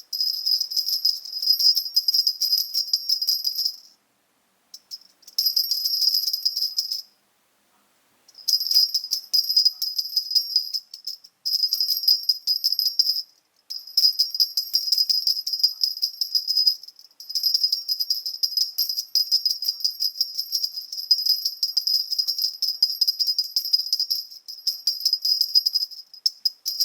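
Small 15 mm gold-coloured metal jingle bell shaken in bursts, jingling with a high, bright ring and rapid rattling strokes. It stops briefly about four seconds in and again about seven seconds in.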